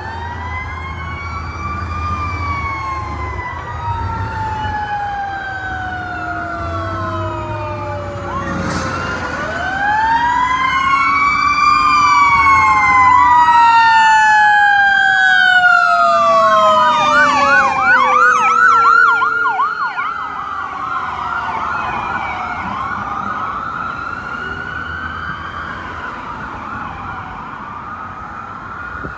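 Several fire-apparatus electronic sirens sounding together, overlapping slow wails that grow louder as the units pass. Near two-thirds of the way in one switches to a fast yelp, and a rapid yelp goes on, fainter, as they move away.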